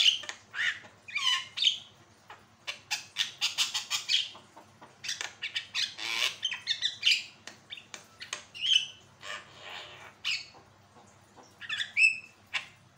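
Caged Javan myna singing a rapid, varied song: harsh squawks and chatter mixed with sharp clicks and short whistled notes.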